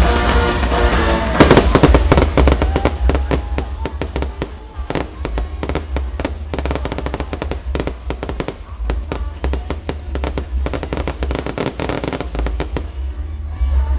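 Fireworks display: from about a second and a half in, a dense run of bangs and crackling from shells bursting overhead, over loud music with a heavy bass.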